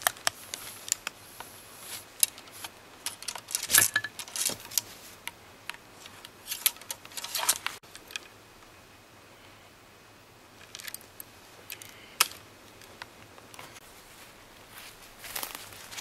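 Small metallic clicks and rattles of a flintlock muzzleloader being handled during loading, with ramrod and clothing rustle, then the lock worked at the priming pan, with one sharp click about twelve seconds in.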